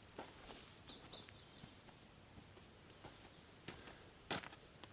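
Faint bird chirps, short downward-sliding notes in small groups, over a quiet outdoor background, with a few soft clicks and one brief knock a little past four seconds in.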